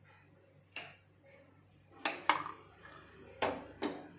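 About five short knocks and clatters, the loudest in the second half, of a stovetop sandwich toaster being handled, set down and opened on a stone countertop.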